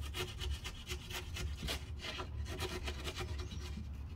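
A hand blade scraping and cutting under felt-like sound-deadening underlay on a model railway baseboard, in quick scratchy strokes, several a second.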